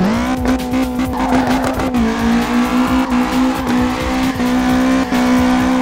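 Motorised 1/14 scale Bugatti Chiron toy car driving: a steady whine that glides up in pitch at the start and then holds, shifting slightly a couple of times, with many short clicks.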